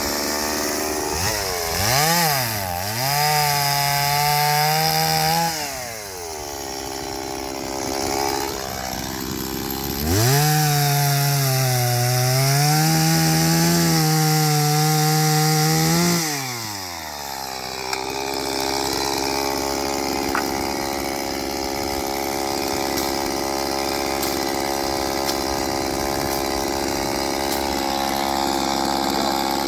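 Stihl two-stroke chainsaw revved to full speed twice, from about two seconds in for several seconds and again from about ten seconds in for about six seconds, its pitch wavering at speed as it cuts brush and wood. After each burst it drops back, and for the last dozen seconds it idles steadily.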